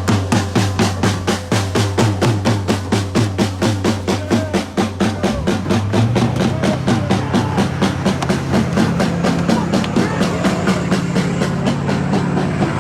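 Music with a fast, even drum beat over a steady bass line.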